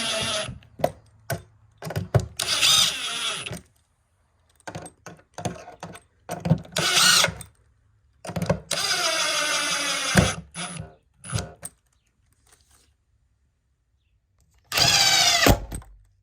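Power drill running in about five short bursts, boring new mounting holes, with knocks and clicks of handling between the bursts.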